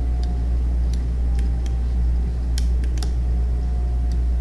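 Steady low hum in the recording, with scattered sharp clicks from computer mouse clicks as parameters are adjusted in the software.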